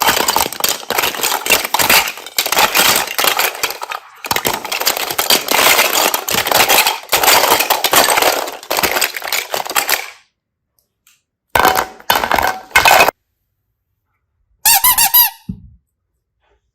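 Slime being squeezed and kneaded by hand, giving a dense run of crackling pops and squeaks for about ten seconds. Short bursts follow after a pause, the last one a pitched squeak.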